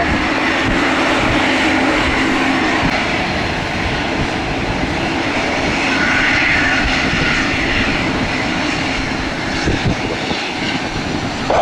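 Jet aircraft engines running with a steady, loud noise and a faint hum, swelling slightly in the middle, while wind buffets the microphone.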